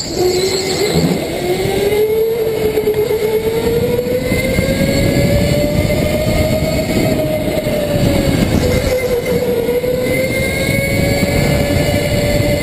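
Racing go-kart's engine heard from onboard, held hard on the throttle. Its pitch drops briefly at the start and again about two-thirds through as the kart slows for corners, and climbs in between as it accelerates down the straights.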